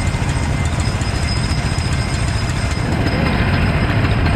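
Go-kart engine idling steadily, with other karts idling alongside; the rumble grows a little louder about three seconds in.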